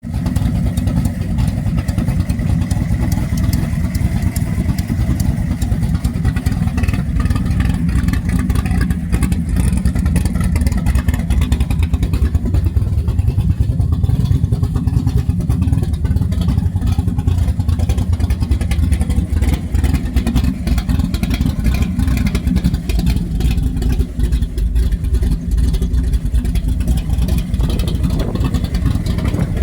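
Engine running steadily with the rapid ticking puff of an exhaust leak.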